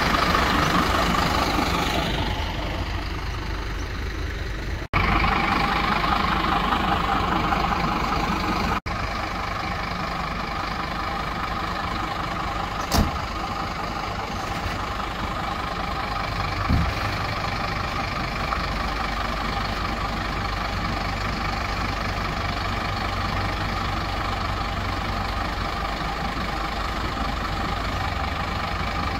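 Scania P310 fire truck's diesel engine idling steadily, with a single sharp click partway through.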